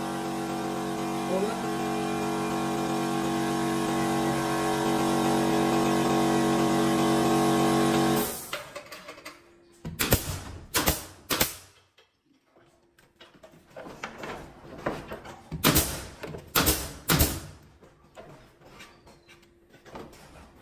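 Air compressor running with a steady hum that grows slightly louder, then shuts off about eight seconds in. A pneumatic nail gun then fires six sharp shots in two groups of three, nailing wooden ceiling panels to the battens, with lighter knocks of the panels being handled.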